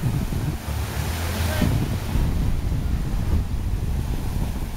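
Ocean surf breaking and washing up the beach, swelling about a second and a half in, over a low rumble of wind on the microphone.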